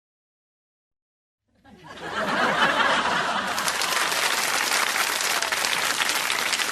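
Audience applause starting about a second and a half in, swelling quickly into steady, dense clapping from a large crowd.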